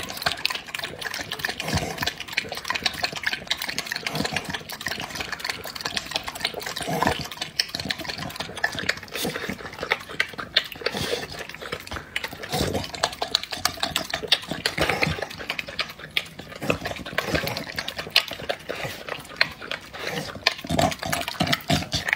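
A dog eating a watery meal of meat and egg from a glass bowl: steady slurping, lapping and chewing, with many irregular wet clicks and smacks.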